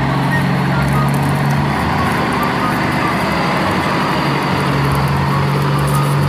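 Truck engine running steadily with a low, even drone. A few faint short high notes come and go over it.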